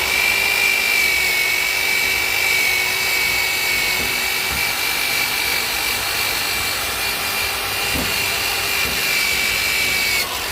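Electric drill spinning a wire brush against the rusted steel of a delta anchor, scrubbing off rust. It runs steadily at speed with a high whine and stops near the end.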